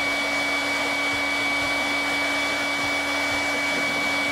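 Hair dryer blowing hot air steadily, a constant rush with a steady hum and whine, heating an action figure's plastic legs to soften them so the parts can be popped off.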